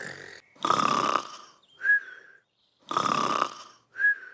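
Cartoon snoring: two long snores about two seconds apart, each followed by a short high whistle on the breath out.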